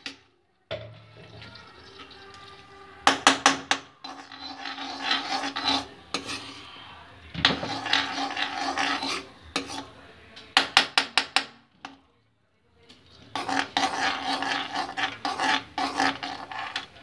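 A metal spoon scraping and tapping on kitchen utensils as desi ghee is spooned into a kadhai. The sound comes in bouts of rasping scrapes broken by quick runs of sharp taps, and cuts out briefly twice.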